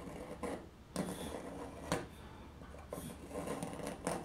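X-Acto hobby knife blade scraping dried joint compound away from the edge of an N scale rail: a run of short, quiet scrapes with a few sharper clicks.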